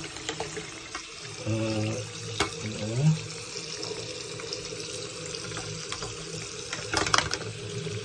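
Tap water running steadily as a washing machine drain filter is rinsed under it, with a few sharp clicks and knocks, the loudest about seven seconds in.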